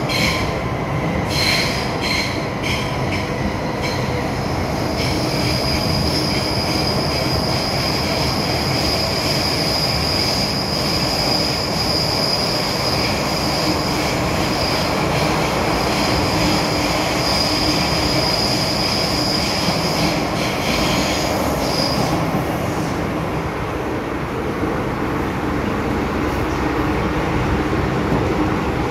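MTR M-Train electric multiple unit running between stations, heard from inside the car: a steady rumble with a high-pitched wheel squeal that stops about three-quarters of the way through. There are a few sharp clicks near the start.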